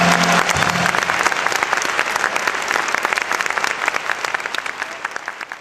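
Audience applause: dense hand-clapping that takes over as a choir's held final chord breaks off, then gradually dies away.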